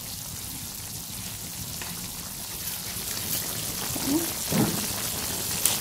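Chopped beef sizzling and simmering in its own juices in a frying pan: a steady crackling hiss, with a couple of brief louder sounds about four to five seconds in.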